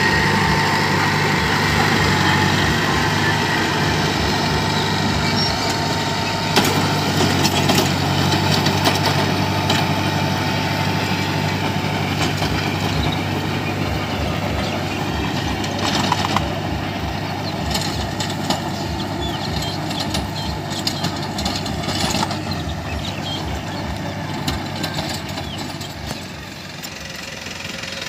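Mahindra Arjun Novo 605 tractor's four-cylinder diesel engine running steadily under load, driving a rotary tiller through dry soil. A high steady whine can be heard over the engine in the first half and fades out about twelve seconds in. Scattered sharp knocks come through from time to time.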